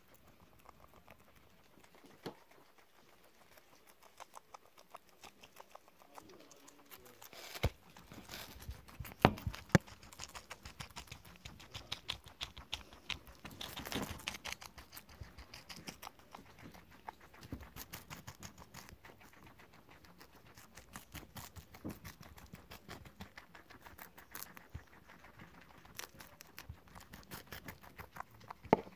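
Guinea pig crunching romaine lettuce: rapid, crisp chewing crunches in quick runs, sparse at first and then busier, with a few louder knocks partway through.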